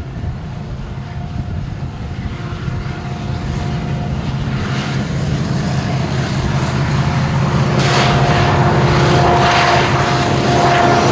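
Diesel locomotives of a loaded BNSF coal train running with a steady engine drone that grows louder as they approach, with rushing wheel and rail noise building over the last few seconds.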